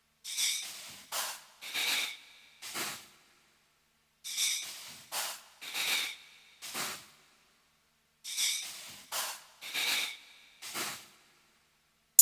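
Intro of an electronic deep house track: short breathy, hissing noise hits, in three repeated groups of four about four seconds apart, with silence between the groups.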